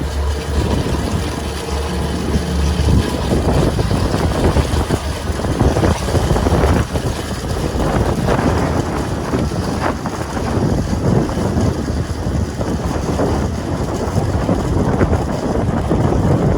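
Diesel engine of heavy farm equipment running steadily, with wind buffeting the microphone from about three seconds in.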